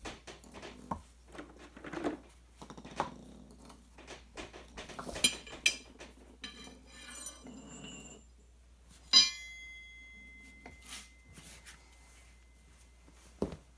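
Steel tire iron clinking and scraping against a railroad spike, the steel gun safe and the concrete floor as the safe is pried up. About nine seconds in, the tire iron hits the concrete with a loud clang that rings on for a few seconds.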